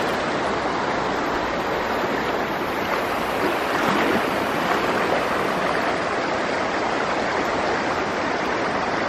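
Kickapoo River floodwater rushing steadily across a paved highway.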